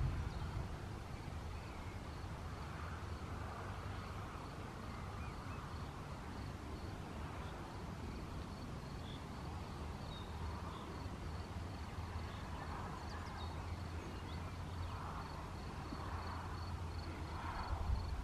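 A cricket chirping in a steady, even, high-pitched pulse over a low, steady outdoor rumble that swells slightly near the end.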